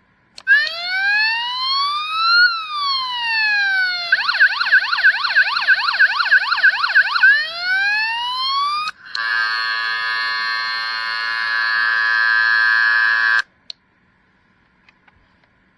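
Electronic siren effect from the Siku 5401 toy police boat's sound module: a slow wail rising and falling, then a fast warbling yelp about four sweeps a second, then another slow rise. It ends in a steady horn-like blare that cuts off suddenly.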